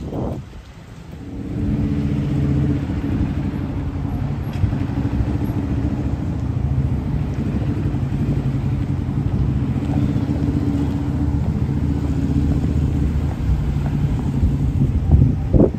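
A motor vehicle engine running at a steady idle close by. It comes in about a second and a half in, and the pitch stays level.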